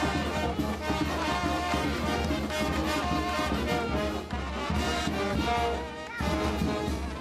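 Brass band music playing, with a steady beat.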